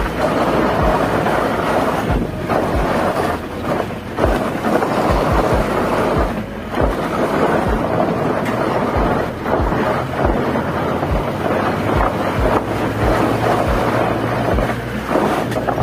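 Wind buffeting the microphone of a hand-held phone, a loud steady rushing, with low thuds about twice a second from walking.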